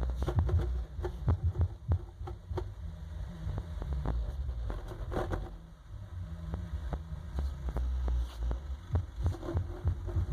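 Two Alpine Type R 12-inch car subwoofers in a vented box playing deep bass inside a car: pulsing bass hits at first, then a longer held bass stretch in the middle, with frequent sharp crackles or rattles over it.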